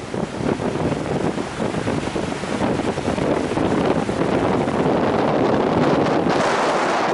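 Wind buffeting the microphone: a dense, steady rushing noise that grows a little stronger in the last couple of seconds.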